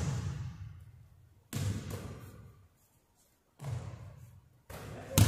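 A basketball thudding on a hardwood gym floor several times, each thud ringing on in the large hall, with the loudest near the end.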